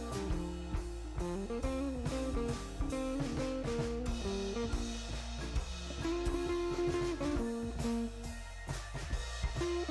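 Instrumental background music with a melody over a steady beat.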